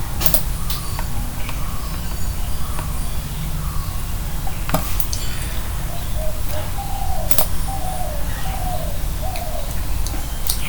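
Bird calling in the background: a run of about six short falling notes about two-thirds of the way in, over a steady low hum and a few sharp clicks.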